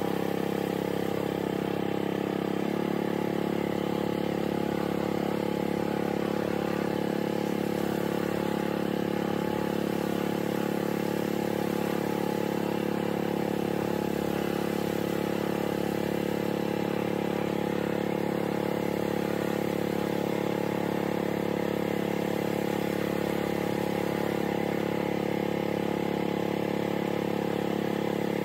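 Small boat engine running steadily, its note shifting slightly about three seconds in.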